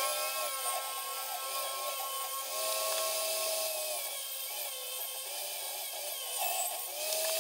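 Portable table saw running and rip-cutting a 2x4 lengthwise to take off its rounded edges. Its high motor whine sags and recovers in pitch several times as the blade takes up the cut.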